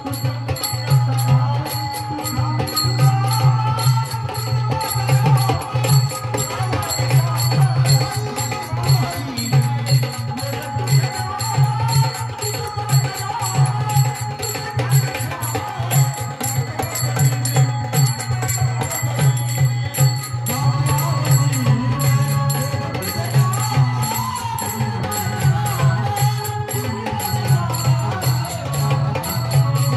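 Traditional Marathi folk-theatre music: a drum keeps a steady, fast beat with small cymbals clicking in time, under a winding melody.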